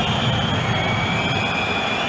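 Steady stadium crowd noise from a football match broadcast, an even wash of sound with a high, steady tone held through it.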